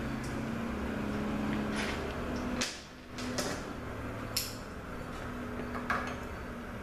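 Several sharp clicks and knocks of metal parts being worked inside a Ford 4R100 automatic transmission case as the overdrive clutch piston and its snap ring are taken out, over a steady low hum.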